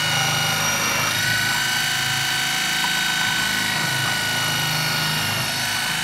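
KitchenAid food processor motor running steadily with a whine and a low hum, its shredding disc grating a yellow squash pushed down the feed tube.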